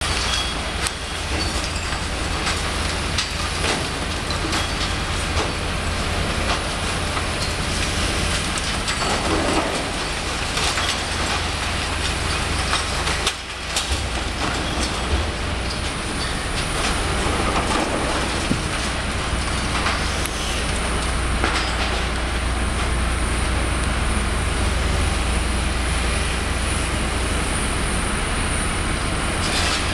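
A hydraulic demolition excavator runs steadily while its grab breaks away brick and concrete, with scattered knocks and crunches of falling masonry.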